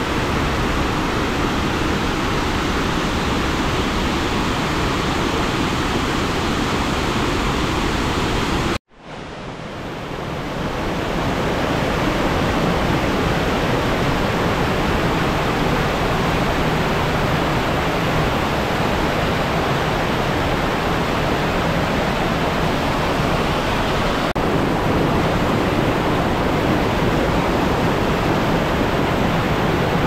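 Steady rush of a waterfall about 30 m high, falling water heard close up. About nine seconds in, the sound cuts out abruptly for an instant and swells back up over about two seconds.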